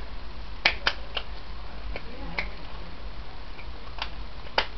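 About seven short, sharp clicks at irregular intervals, a close pair about half a second in and another near the end, over a faint low steady hum.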